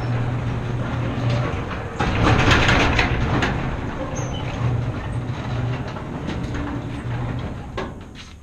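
Motorcycle engine idling with a steady low hum. About two seconds in a louder rush of noise comes over it for a second or so, and the sound drops away near the end.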